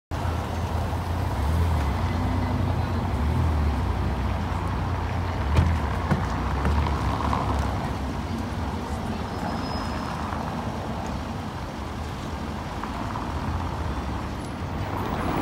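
Steady street traffic noise with a car's engine running close by, and one short knock about five and a half seconds in.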